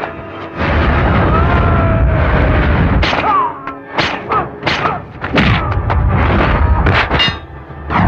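Film fight-scene soundtrack: heavy punch and thud impact effects over dramatic background music, with a quick run of hits in the second half.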